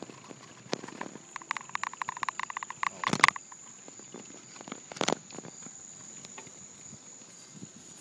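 Steady high-pitched drone of evening insects, with a run of rapid ticking for a couple of seconds early on and two sharp knocks, about three and five seconds in.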